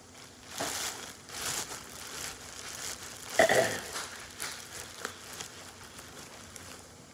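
Crinkling, rustling handling noises in irregular bursts, with one louder crunch about three and a half seconds in, followed by small scattered crackles.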